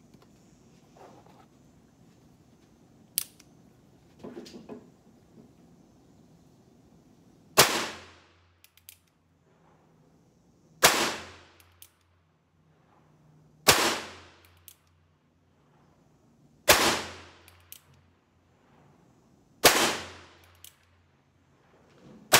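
Hawes J.P. Sauer Western Marshal single-action .22 LR revolver fired slowly, six shots about three seconds apart, each sharp crack followed by a short ringing tail under a metal roof. Light clicks of the action come between shots. A sharp click and some handling noise come before the first shot.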